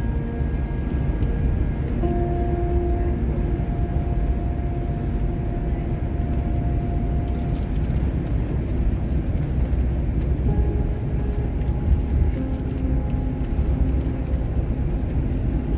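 Steady low rumble of a double-decker coach at highway speed: engine and road noise heard from inside the cabin.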